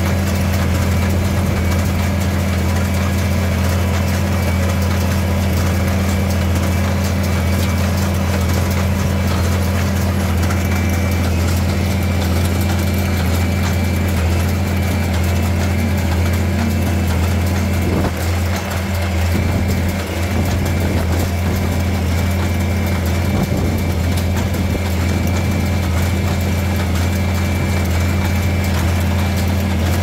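Tractor engine running steadily at a constant speed, a low, even drone with a small dip in level a little past halfway.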